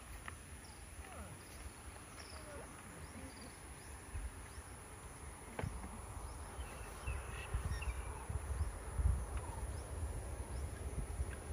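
Outdoor ambience: a steady high-pitched insect drone, with faint scattered chirps and an uneven low rumble of wind on the microphone that grows stronger in the second half.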